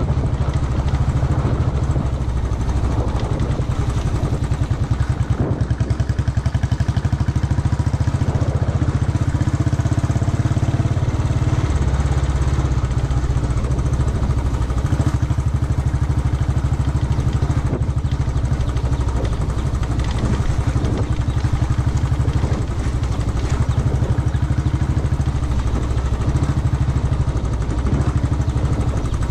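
Royal Enfield Bullet's single-cylinder engine running steadily under way, with a fast, even low exhaust beat.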